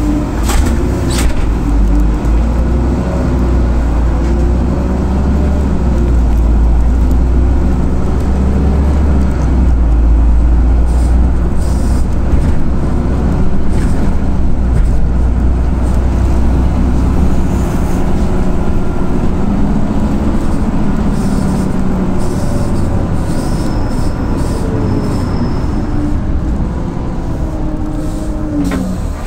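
Bus engine and road rumble heard from inside the moving bus: a strong, steady low drone, with the engine note rising and falling as the bus changes speed.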